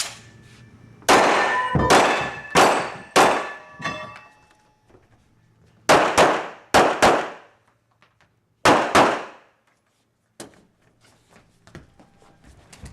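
Handgun shots fired in a rapid IPSC course of fire: about ten sharp reports in three quick strings, with pauses between them. Each report leaves a short ringing tail.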